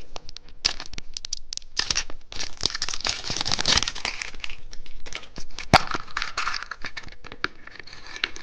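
Wrapping on a surprise egg being torn and crinkled open by hand: dense, irregular crackling and rustling with many small clicks, with one sharp click nearly six seconds in.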